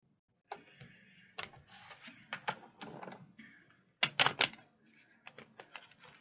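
A deck of cards shuffled by hand: a run of sharp clicks and snaps of card edges, with three louder snaps about four seconds in.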